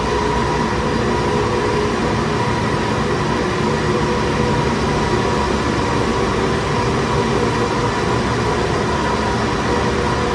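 Cable-car winding machinery running: the big sheaves and the always-moving haul cables give a steady whirring rumble with a few held humming tones.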